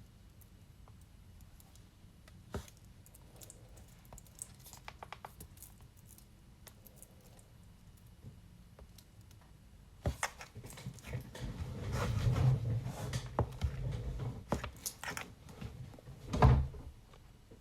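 Handling noise: scattered small clicks and taps, then from about ten seconds in a busier stretch of rustling and knocking, with a loud bump near the end.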